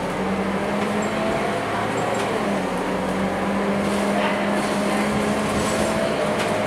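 Scania K230UB bus's rear-mounted nine-litre five-cylinder diesel engine heard from inside the passenger cabin as the bus drives along: a steady drone whose pitch dips briefly about two and a half seconds in, then rises gently.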